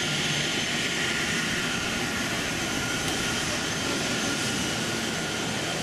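Jet aircraft engines running steadily: an even rushing noise with a faint high whine that holds without change.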